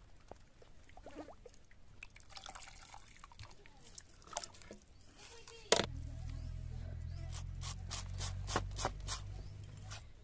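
Water dripping and sloshing as goat tripe is lifted and worked in a steel pot of water. About six seconds in there is a sharp knock, then a low rumble with a run of sharp knife clicks as the tripe is cut on a board.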